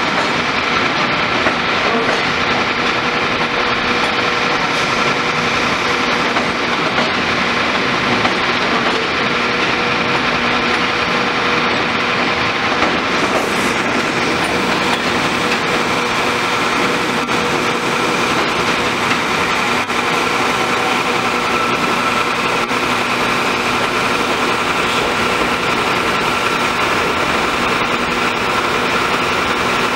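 R68 subway train rolling slowly over the switches on an elevated line: a steady rumble of wheels on rail with a constant hum underneath, and hiss added about halfway through.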